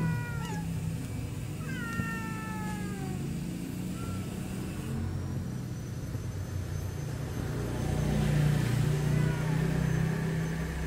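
Stray cats meowing: a short meow falling in pitch at the start, a longer meow drawn downward about two seconds in, and a brief one near four seconds. A steady low rumble runs underneath and grows louder about eight seconds in.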